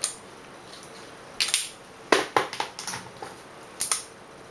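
Plastic lipstick cases clacking and rattling against each other as they are picked through by hand: a handful of sharp, irregular clatters.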